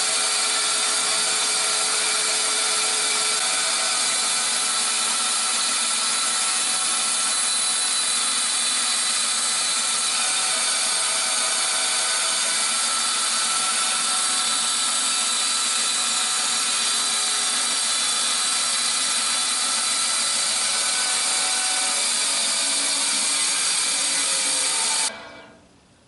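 A 14-inch bandsaw with a 1/4-inch blade running and cutting a curve through a plywood block: a loud, steady motor hum and blade noise with several fixed tones. It stops abruptly about a second before the end.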